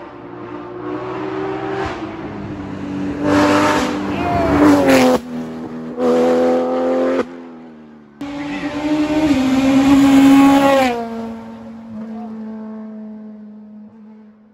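Rally car engines revving hard as cars pass on a stage road, the engine note climbing through the gears and dropping as each car goes by, broken off abruptly a few times. Near the end one car's note falls and fades steadily into the distance.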